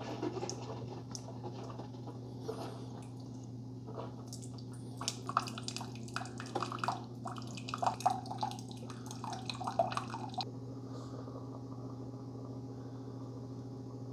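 Keurig K-Supreme Plus Smart single-serve coffee maker running its first-use cleansing brew, plain hot water with no pod. From about four to five seconds in, a patter of drips and spurts sounds as water runs into the mug, then it stops abruptly about ten seconds in. A steady low hum runs underneath.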